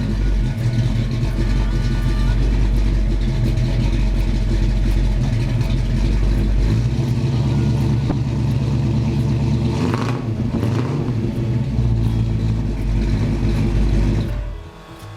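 Mopar 440 big-block V8 car engine running with a steady deep drone, dropping away shortly before the end.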